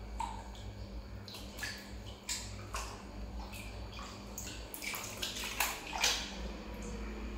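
Water splashing and sloshing in a plastic tub as a baby monkey moves about in it, in irregular short splashes with the loudest about six seconds in, over a steady low hum.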